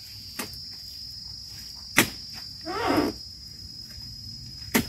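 Three sharp knocks of a dodos, a chisel blade on a long pole, being jabbed into the base of oil palm fronds and fruit-bunch stalks: a faint one near the start, then louder ones about two seconds in and near the end. A steady high insect drone runs underneath.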